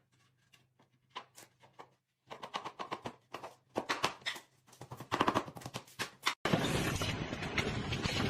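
Quick sharp clicks and knocks, a few at first, then a dense clattering run. About six seconds in, it cuts off abruptly and a loud, steady rushing noise takes over.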